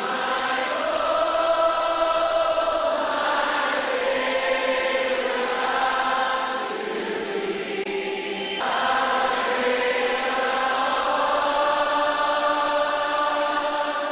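Worship music with wordless, choir-like voices holding long sustained chords. The chord changes about three seconds in and again just past the halfway point.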